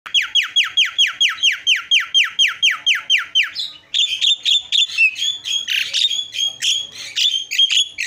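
Javan myna (jalak kebo) calling: a rapid run of about fifteen identical falling notes, about four a second, then after a brief pause a varied jumble of whistle-like calls and harsh chatter.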